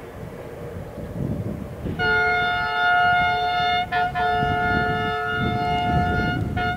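An electric freight locomotive's air horn sounds a steady chord. It starts about two seconds in with a long blast of about two seconds, breaks off briefly, and sounds again for about two seconds more. A third note starts near the end. Wind buffets the microphone underneath.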